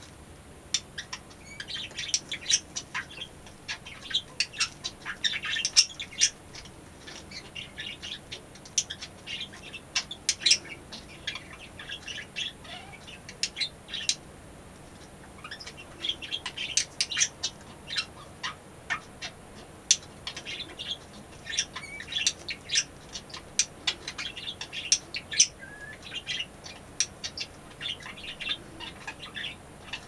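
A budgerigar preening: a rapid, irregular run of soft clicks and scratches from its beak working through its feathers, coming in clusters with a short lull about halfway through.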